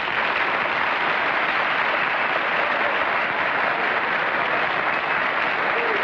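Studio audience applauding steadily, a dense even clapping that holds at one level throughout.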